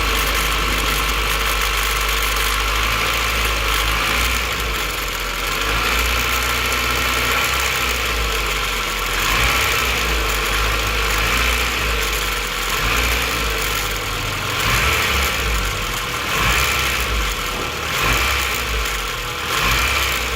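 Honda B16 four-cylinder engine idling after a cold start, with a rattle that the owner hears from the distributor; a replacement distributor and a valve lash adjustment have not cured it. The sound swells louder every second or two in its second half.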